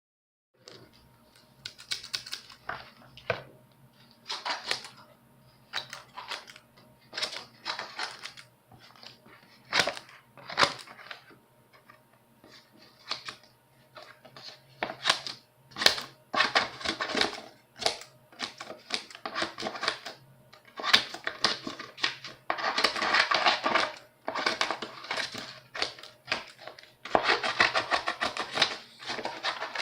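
Scissors cutting paper: a run of separate crisp snips, some short and single, others drawn out over a second or two as the blades slice along the sheet.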